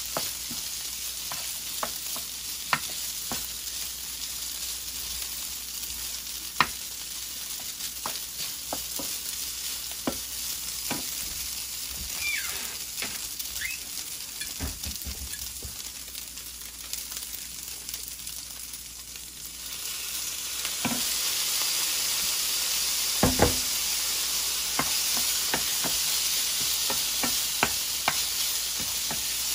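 Steak fried rice sizzling in a nonstick frying pan while a wooden spatula stirs it, with scattered sharp taps and scrapes of the spatula against the pan. The sizzle grows louder about twenty seconds in.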